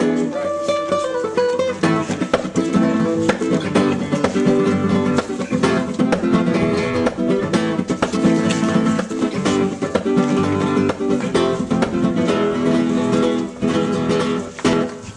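Background music: acoustic guitar picked and strummed quickly, in a flamenco-like style.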